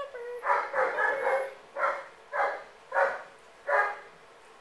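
Dog barking: a quick run of high barks about half a second in, then four single barks at even intervals of about two-thirds of a second.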